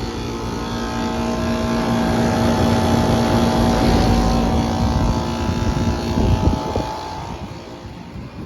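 Outdoor air-conditioner condensing unit running: a steady hum of compressor and fan with several held tones. It grows louder toward the middle, then fades away near the end.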